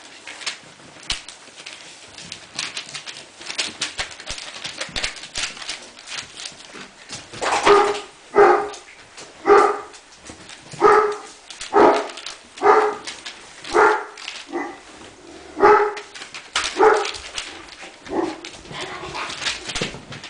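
Three-and-a-half-week-old Irish Wolfhound puppy barking: a run of about nine short, high barks roughly a second apart, starting about a third of the way in, after a stretch of faint clicking and scuffling. The barks fade into softer sounds near the end.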